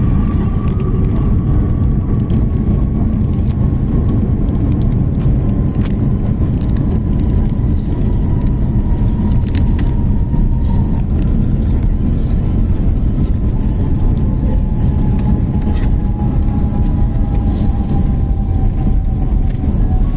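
Airbus A350-900 aircraft noise heard from inside the cabin: a loud, steady rumble with a whine from its Rolls-Royce Trent XWB engines that slowly falls in pitch.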